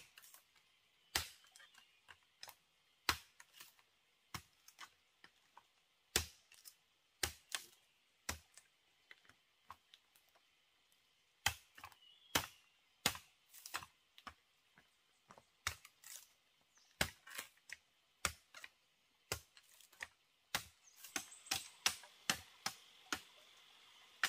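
Sharp, irregular knocks of a tool striking bamboo, a second or more apart at first and coming quicker near the end.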